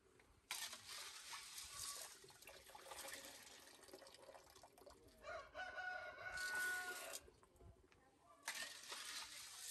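Water poured from a small bowl into a metal basin of red beans to rinse them, splashing for about six seconds, then starting again after a pause of about a second. A rooster crows loudly over the end of the first pour.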